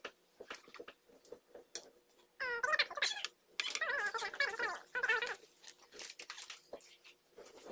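Two high-pitched, voice-like calls that rise and fall in pitch, a short one about two and a half seconds in and a longer one of about a second and a half right after it. Light clicks and taps of metal tongs on the hot plate run between them.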